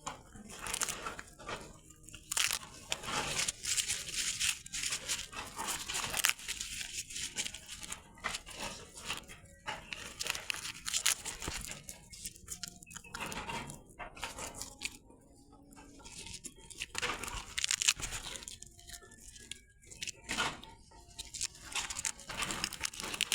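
Papaya leaves being torn and chewed: an irregular run of crunching, tearing and rustling bursts with short pauses.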